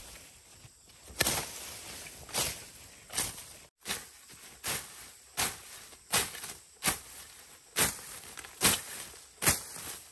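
Hoe chopping into weeds and soil in a corn patch, striking in a steady rhythm of about one blow every 0.8 s, about eleven blows in all.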